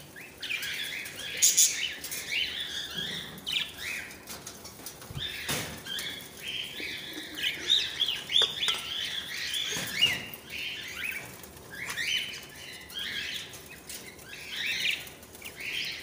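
Budgerigars chattering with constant busy chirps, with wing flutters and a few sharp knocks as birds flap about the wire cage.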